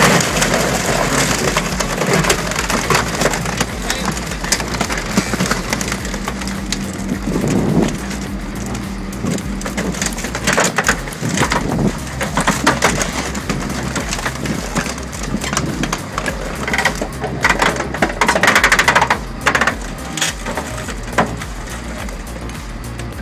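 A car being flattened in a car crusher: continuous crunching with many sharp cracks over the machine's steady low hum.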